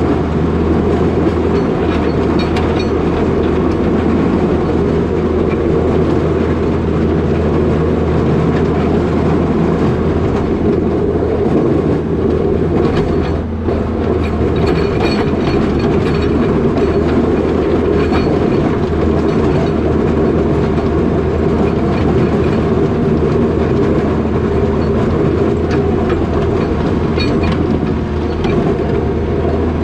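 New Holland L220 skid steer's diesel engine running steadily under load, with continual rattling and clatter from the machine.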